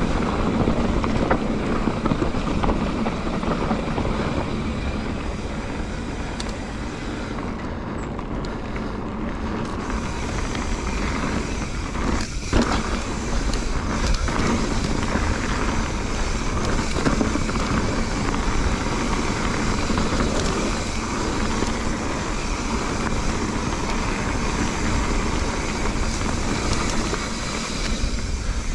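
Lapierre Zesty mountain bike ridden over a rough dirt trail, heard through a chest-mounted GoPro: a steady rush of wind and tyre noise with frequent small knocks and rattles from the bike over the terrain.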